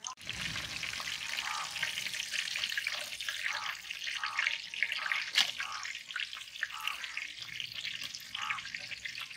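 Battered chicken-stuffed chilli bajji deep-frying in hot oil in an iron kadai: a steady, dense sizzle and crackle of bubbling oil. One sharp knock about five seconds in.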